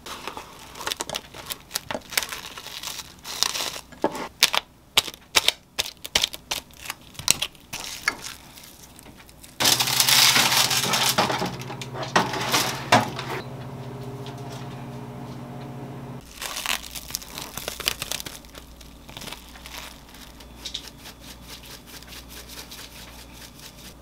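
Kitchen handling sounds: a run of sharp clicks and knocks. About ten seconds in, an air fryer oven starts with a steady humming whir that runs for about six seconds and then stops. Near the end comes a quick, dense run of fine ticks.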